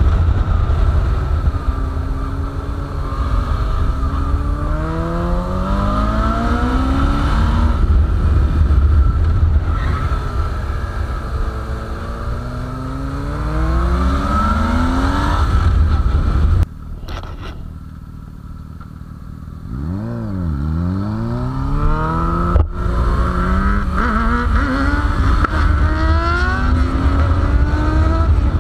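Motorcycle engine accelerating hard on the open road, its pitch climbing through each gear and dropping at every shift, over a heavy wind rumble on the microphone. A little past the middle the engine sound suddenly falls away for a few seconds, then comes back with a quick fall and rise in pitch before pulling up through the gears again.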